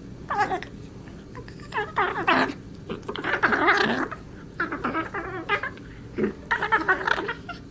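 Wirehaired dachshund puppies playing: a string of warbling, whiny growls and squeals in short bursts, the strange 'alien noises' of a puppy at play. The longest and loudest call comes about three and a half seconds in.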